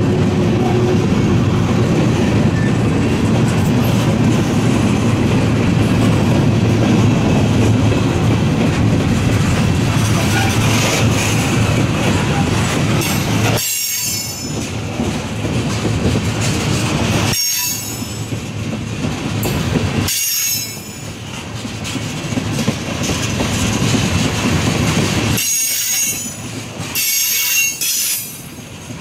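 Freight train of covered hoppers and tank cars rolling past, its wheels running and clattering steadily on the rails. In the second half the wheels squeal in several short high-pitched spells.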